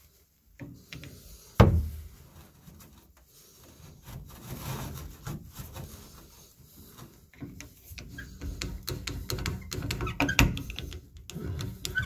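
Handling noises at a brass shower valve: a towel rubbed and tucked around the valve body, a sharp knock about one and a half seconds in, and a run of clicks and scrapes near the end as a flat metal blade is set into the slot of the valve's balancing spool.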